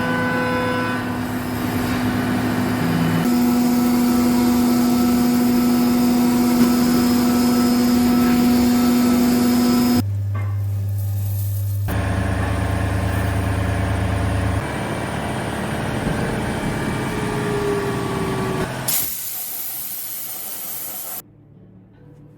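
CNC milling machines running: a steady machine hum with sustained tones and hissing. The sound changes abruptly several times, then drops to a faint background near the end.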